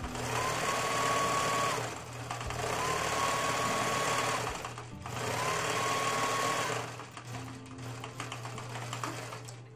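Electric sewing machine stitching a quarter-inch seam through fabric and binding in three runs of a couple of seconds each. The motor's whine rises as it speeds up at the start of each run, then stops. A few light clicks follow near the end.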